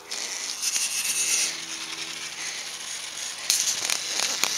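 Small youth dirt bike riding along a dirt track, its motor and drivetrain giving a steady mechanical whir, getting louder and rougher about three and a half seconds in as the bike comes close.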